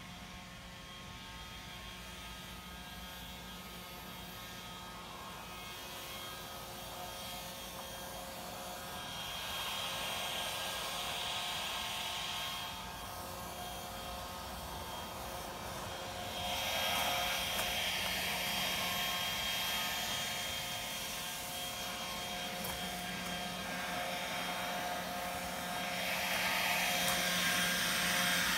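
Handheld leaf blower running with a steady whining motor, its rush of air swelling and fading several times as it sweeps nearer and away, loudest near the end.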